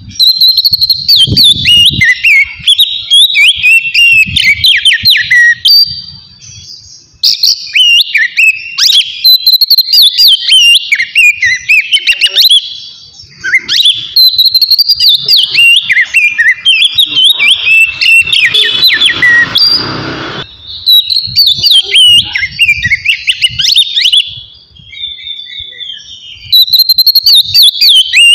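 Oriental magpie-robin (kacer) singing in the clear, loud 'ngeplong' style: rapid, varied whistled phrases, in several long bursts broken by brief pauses.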